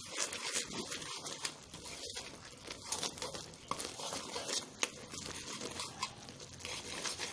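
Massaman curry paste frying in coconut cream in a pot while being stirred: a steady sizzle with many small irregular crackles. The paste is being fried until fragrant, before any other ingredients go in.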